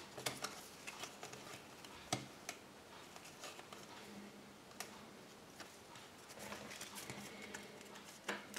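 Faint, scattered small clicks and soft rustles of handling at irregular intervals, thickest near the end, over quiet room tone.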